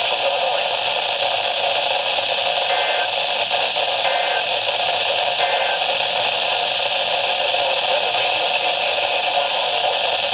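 Steady static hiss from a weather radio's speaker, a noisy NOAA Weather Radio signal with no announcement on it.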